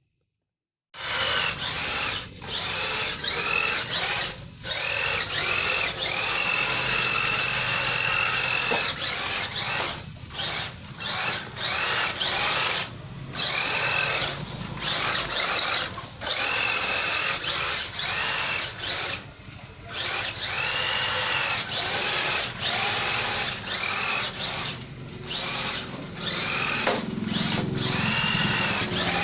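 1/10-scale electric RC drift car's brushed motor whining in repeated short bursts as the throttle is blipped on and off, the pitch rising with each burst and dropping away when it is released.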